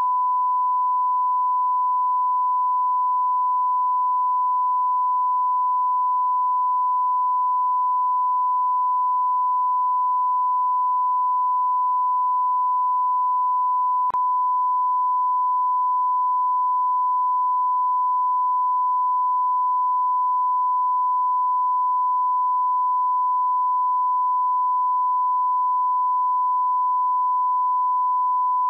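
Steady 1 kHz sine-wave test tone: one unbroken pitch that does not change.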